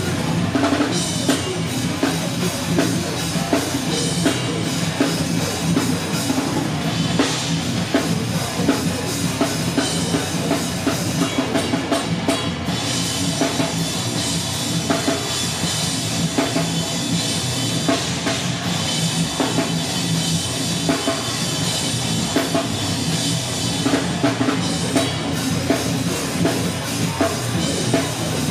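Rock band playing live and loud: a driving drum kit with heavy bass drum, over distorted guitars.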